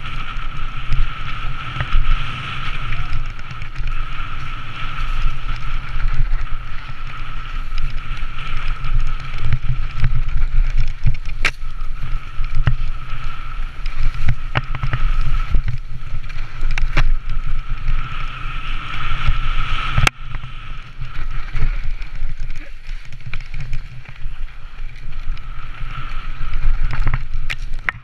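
Mountain bike ridden fast down a dirt trail, heard from a helmet camera: heavy wind buffeting on the microphone over tyre and frame rattle, with a steady high hum and a few sharp knocks from bumps along the way.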